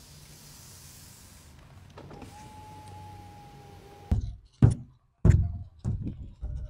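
A Mercedes door's electric power window running, a steady motor hum with a whine held at one pitch that stops about four seconds in. Then several sharp knocks, hands striking the carbon end plate on an F50 catamaran's foil.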